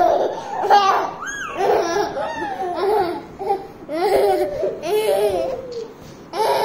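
Toddler laughing hard in repeated high-pitched bursts.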